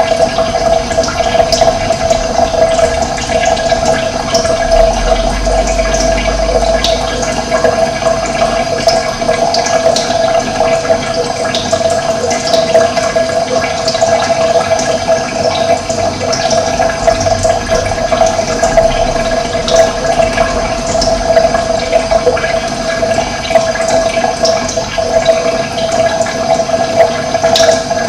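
Steady rush of running water, with brief high bird chirps scattered through it.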